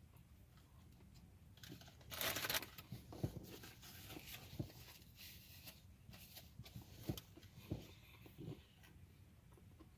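Close handling of the burger and its paper wrapping: a short burst of rustling and crunching about two seconds in, followed by scattered soft clicks and knocks.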